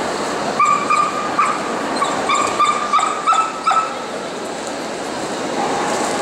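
A dog giving a quick string of short high-pitched cries, about eight in three seconds, starting just under a second in and stopping at about four seconds, over the steady background noise of a busy hall.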